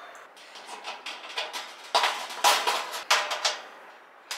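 Stainless-steel camping stove oven being handled: about six light metal clinks and rattles of its parts, each with a short ring, the loudest about two seconds in.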